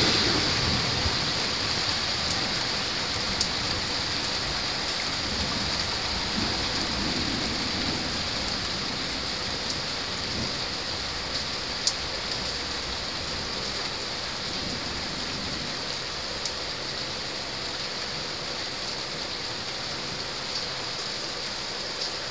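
Rain falling steadily on roofs during a thunderstorm, slowly easing in loudness, with a low rumble of thunder dying away near the start and a few sharp ticks of drops.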